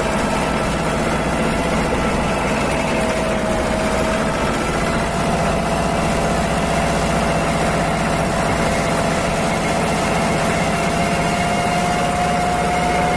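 Mahindra Jivo 245 DI compact tractor's two-cylinder diesel engine running steadily as the tractor drives along at an even pace. A thin, steady whine sits over the engine and edges slightly up in pitch.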